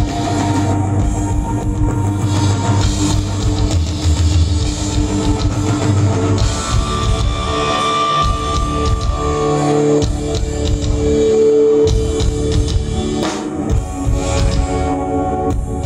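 Rock band playing live, with electric guitar and a drum kit, and long held notes through the middle.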